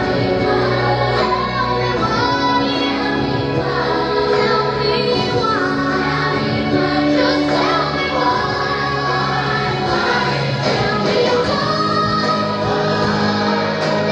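A song with several voices singing over a musical accompaniment with sustained low notes.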